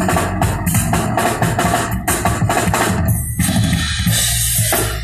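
Drum kit played live and loud: fast hits on drums and cymbals over a steady bass line. About three seconds in, the hits give way to cymbals ringing out, which stop abruptly at the end.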